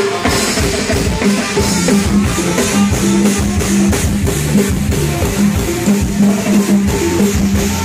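Thai brass band (trae wong) playing procession music: long held horn notes over a drum kit keeping a steady beat with bass drum and snare.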